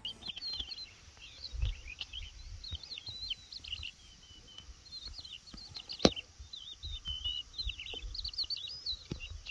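Several birds singing: a busy chorus of quick, high, sweeping chirps, with a single sharp click about six seconds in.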